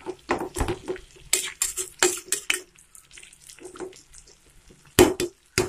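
Metal spatula scraping and clattering against a pan while stirring a simmering stuffed brinjal curry: a quick run of clicks and scrapes in the first couple of seconds, a quieter stretch, then two sharp knocks on the pan near the end.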